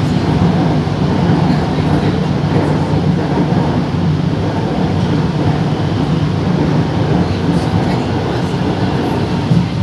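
Fleet F metro train heard from inside the car while running at speed: a steady rumble of wheels on rail with an even low hum.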